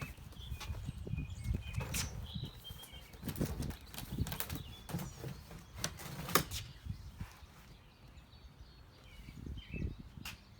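Outdoor ambience: an uneven low rumble rising and falling in gusts, with scattered sharp clicks and faint, high, short chirps.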